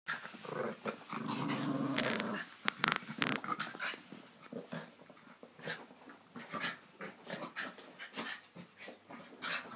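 Small terrier-type dogs play-fighting and growling: a long growl about a second in, then sharp snaps and many short bursts of growling.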